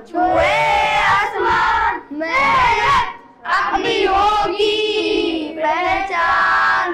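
A group of boys singing a patriotic Urdu song together into a microphone, in loud phrases with short breaks between them.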